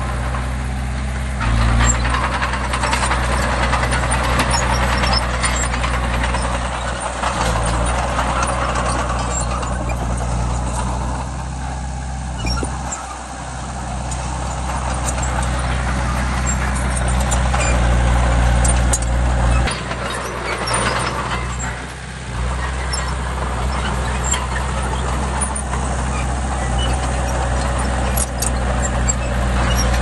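Diesel engine of a Hitachi mini bulldozer running under varying load, its note swelling and easing several times, with two brief dips, one about a third of the way through and one about three quarters through.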